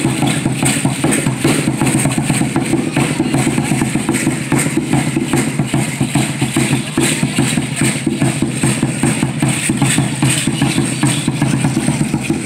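Mexica (Aztec) dance drumming: a large upright drum beaten in a fast, steady rhythm, with the rattling of the dancers' ankle rattles over it.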